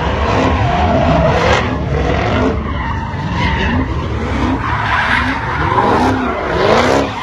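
Jeep Grand Cherokee Trackhawk's supercharged V8 revving up and down again and again while its rear tyres screech and skid, spinning donuts.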